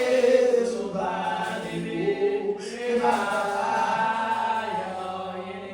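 Voices singing a chant-like line in a few phrases, with long held notes.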